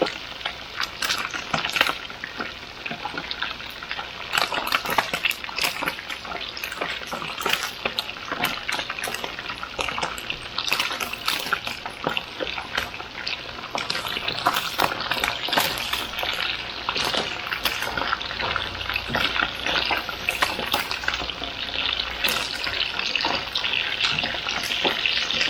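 Seasoned Spanish mackerel pieces frying in hot oil, a steady crackling sizzle with many small pops.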